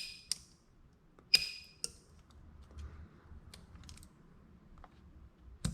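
Spot welding pen on a PCB spot welder firing onto thin nickel strip: sharp snaps at the start and about a second and a half in, each with a brief high ring, then a few fainter ticks and another snap near the end. The spark is blowing through the thin nickel instead of welding it cleanly.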